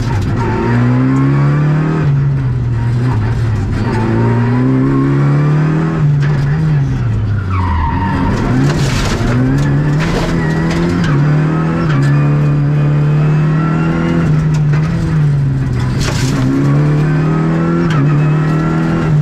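Renault Clio Rally5's turbocharged four-cylinder engine, heard from inside the cabin, pulled hard through the gears. The revs rise and fall with each shift and drop deeply about halfway through before climbing again, over a constant gravel hiss from the tyres. A few short, loud rushes of noise come about halfway through and again near the end.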